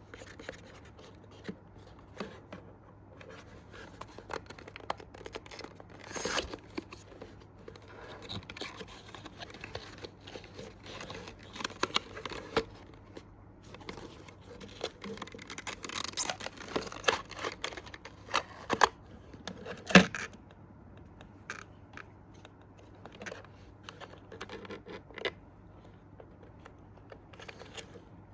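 Packaging of a diecast model car being opened and handled: irregular scratching, scraping and tearing with scattered clicks, and one sharp click about twenty seconds in.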